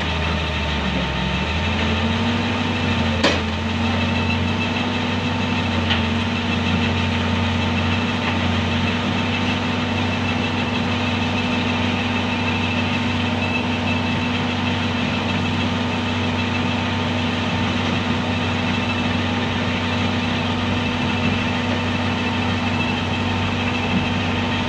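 Komatsu PC200 excavator's diesel engine running steadily under load as the machine strains on the truck ramps. Its note rises a little in the first two seconds and then holds, and there is one sharp knock about three seconds in. The machine is said to be damaged and losing power, running only 'half alive'.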